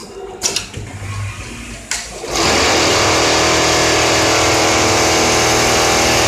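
Automatic template sewing machine with a few sharp mechanical clicks, then about two seconds in it starts stitching and runs at a steady high speed.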